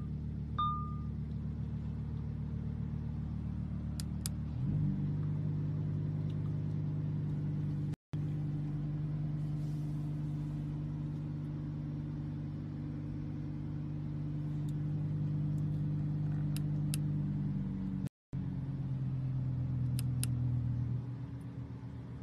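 Lamborghini Huracán EVO's V10 engine idling steadily, heard from inside the cabin, with a few faint clicks. The idle note changes about four and a half seconds in, and the sound cuts out briefly twice.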